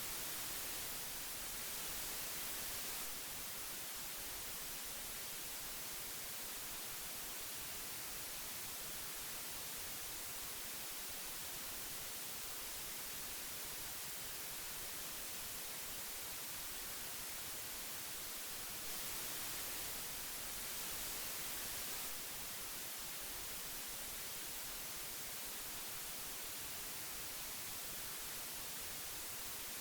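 Old tape hiss: a steady, even hiss weighted toward the high end, growing slightly louder for a few seconds at the start and again about two-thirds of the way through.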